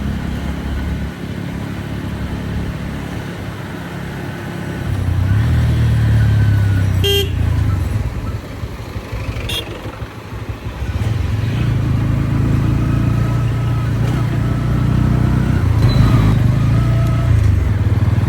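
Motorcycle engine running under way, getting louder as the rider opens the throttle about five seconds in and again from about eleven seconds on. A vehicle horn toots briefly about seven seconds in, with another short blip a couple of seconds later.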